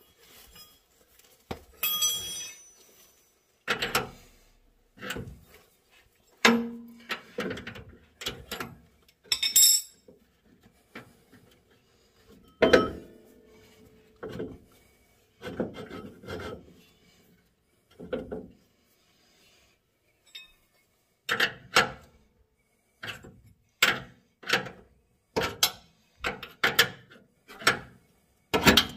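Clinks and knocks of a wrench and metal parts at the air-bag mount on a front lower control arm as its bolt is tightened. They come in scattered single strokes, then as a run of evenly spaced clinks, about one or two a second, in the last third.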